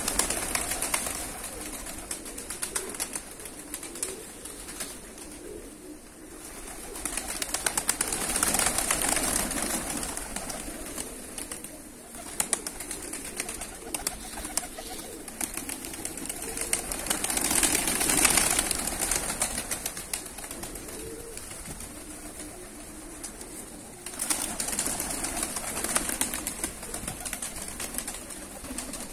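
A flock of fighting pigeons landing and feeding on the ground: bursts of wing flapping that swell and fade several times, over a continuous clatter of pecking and soft cooing.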